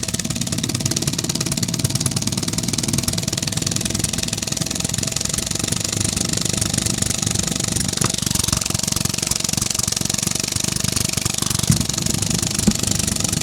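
3D-printed compressed-air piston engine running fast: a rapid, even clatter of strokes with a steady hiss of escaping air.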